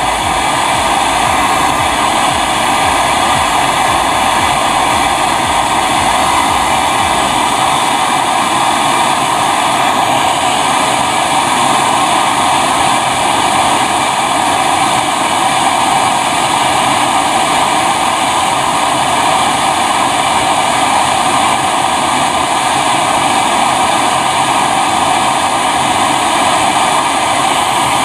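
Portable MAP-gas torch flame burning steadily against a copper tube on a refrigerator compressor, a constant rushing noise as it heats the joint for brazing.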